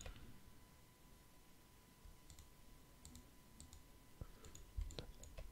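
Near silence with a few faint, scattered clicks of a computer mouse, over a faint steady high tone.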